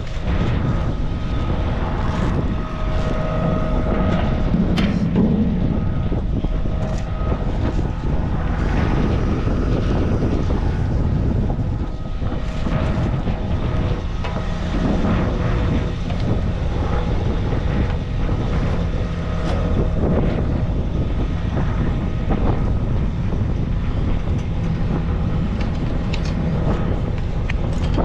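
Machinery running steadily, a low drone with a faint whine through it and a few light clicks.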